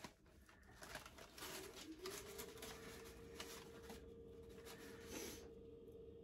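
Faint rustling and crinkling of parchment paper as it is handled and peeled away from dough on a baking sheet. A faint steady hum sets in about two seconds in.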